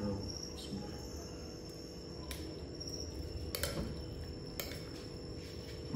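Three sharp clinks of a metal spoon against a glass plate, about a second apart around the middle. Under them runs a steady faint high-pitched chirr and a low hum.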